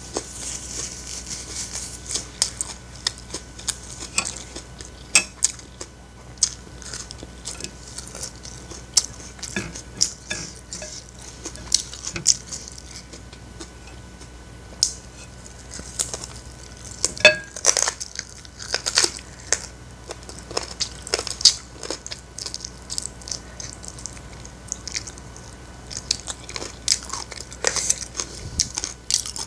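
Close-up eating sounds: chewing and mouth clicks from a person eating fried rice and fried chicken, with a metal spoon and fork clinking against ceramic plates at intervals. Many short sharp clicks and taps, busiest in the middle.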